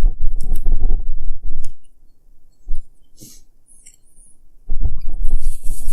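Close-miked chewing and mouth sounds of someone eating a Philly cheesesteak sandwich: wet clicks and low thumps, with a quieter stretch in the middle before the chewing picks up again.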